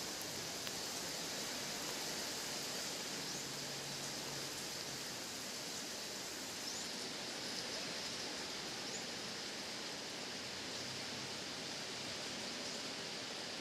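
Steady rain falling, a constant even hiss. A few faint, short rising chirps sound in the middle.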